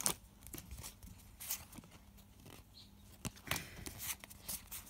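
Pokémon trading cards being handled and slid over one another in the hands, giving a few scattered faint papery flicks and brushes.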